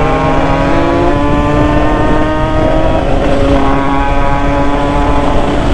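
A Derbi two-stroke moped engine fitted with an Italkit 80cc big-bore kit, revving hard under full throttle. Its note holds high, breaks off about three seconds in, then climbs again, over a steady rush of noise.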